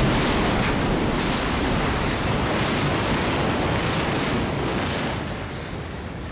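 Tower block collapsing in an explosive demolition: a loud, continuous rumble of falling concrete and debris that eases off slightly near the end.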